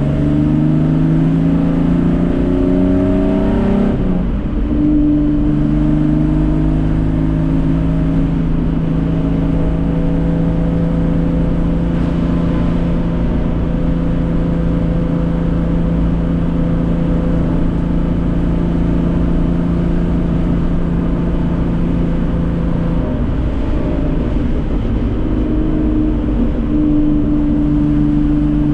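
Group C Datsun 240K race car's straight-six engine running hard. The revs climb over the first few seconds, change abruptly, then hold at a steady pitch for a long stretch, with the note changing again near the end.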